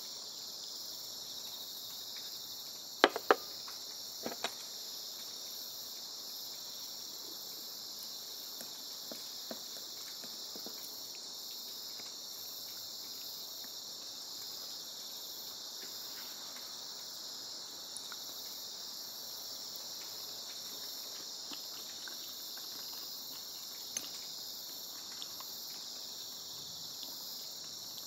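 A steady, high-pitched chirring of insects in an evening chorus, like crickets. About three seconds in, a quick cluster of sharp clicks stands out, with a few faint ticks later on.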